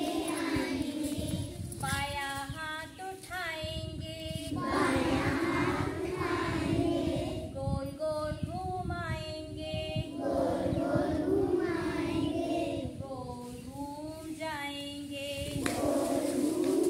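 A woman and a group of young children singing a Hindi action song, a clear solo line taking turns with fuller group singing, as in call and response.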